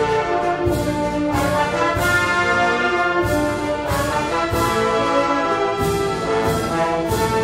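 Concert wind band playing a pasodoble: held brass chords over regular percussion strokes on the beat.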